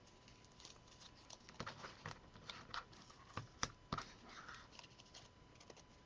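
Paper and chipboard craft pieces being handled on a cutting mat: a run of faint rustles, crinkles and light taps starting about a second and a half in and dying away a little after five seconds, the sharpest tap near the middle.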